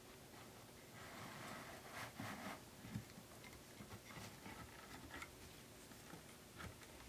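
Faint handling noise of fingers pressing a rubber trim ring onto the rim of a loudspeaker woofer: a soft rubbing about a second in, then a few light clicks and taps.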